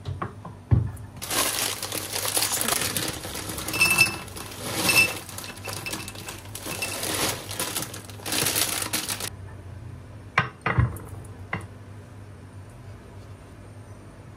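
A glass bowl set down on a wooden board, then a plastic bag crinkling for about eight seconds as small hard snacks pour out of it into the glass bowl, clicking against the glass. Two sharp knocks on the board follow a little later.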